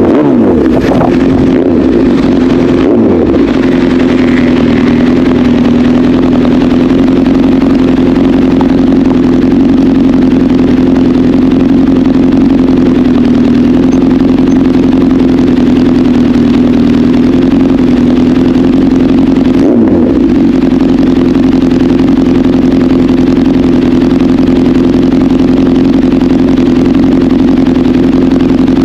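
Honda CBR1000RR's inline-four engine with an SC-Project aftermarket exhaust, running loud at a steady pitch, with brief changes in the note near the start, about three seconds in and about twenty seconds in.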